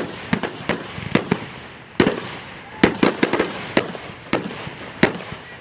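Fireworks going off in a rapid, irregular barrage of sharp bangs and pops, often several a second, some close together in clusters.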